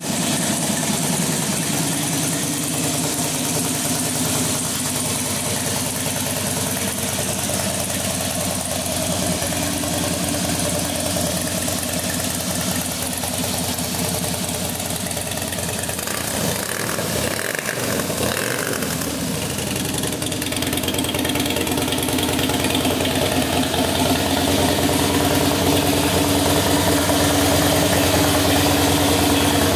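Harley-Davidson FXS Blackline's air-cooled V-twin engine idling steadily. It gets somewhat louder about two-thirds of the way through.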